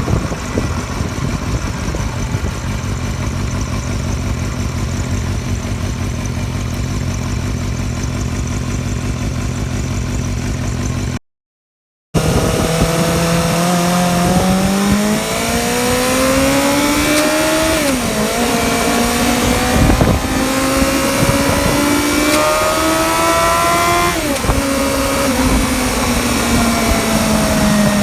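Motorcycle engine from a Suzuki Bandit 250V, swapped into a Choinori and fitted with a new silencer, running at a steady speed. After a brief cut it accelerates, its pitch rising, dropping sharply at two upshifts and rising again.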